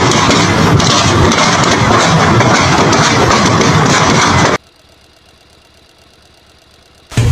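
Loud engine running steadily with a heavy low rumble, cutting off suddenly about four and a half seconds in and leaving a much quieter stretch.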